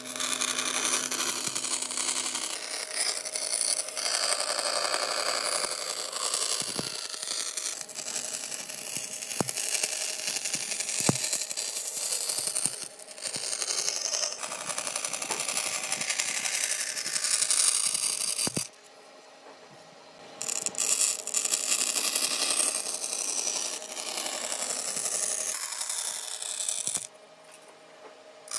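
Bandsaw cutting a curve through a thin wooden board, the blade hissing through the wood over the steady hum of the machine. The sound drops away twice for a second or two, about two-thirds of the way in and near the end.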